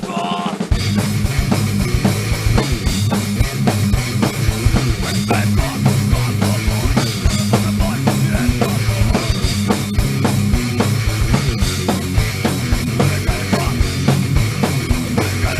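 Punk rock band playing a fast, loud song: distorted electric guitar, bass and a pounding drum kit. The low end drops out briefly at the start and the full band comes back in under a second in.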